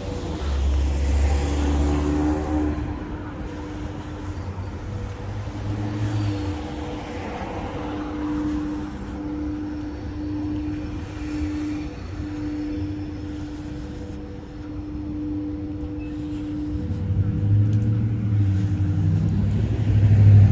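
Motor vehicle engines: a steady engine hum throughout, with a heavier low rumble of passing vehicles near the start and again building near the end.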